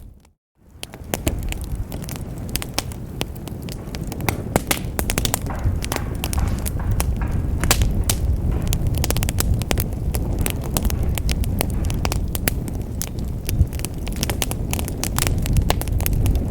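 Wood fire in a fireplace, crackling and popping irregularly over a low steady rumble of flames. The sound cuts out briefly about half a second in and fades back up.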